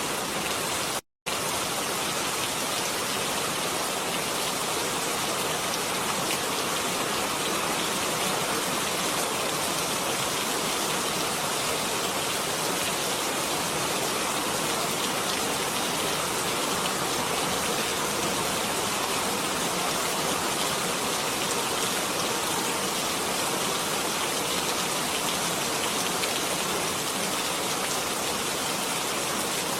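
Steady rain falling, an even hiss of drops with no thunder. It cuts out to silence for a moment about a second in, then runs on unchanged.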